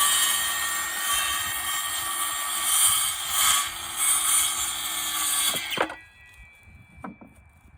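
Electric power tool running on wood with a steady whine for nearly six seconds, then switching off and winding down. A few faint knocks follow.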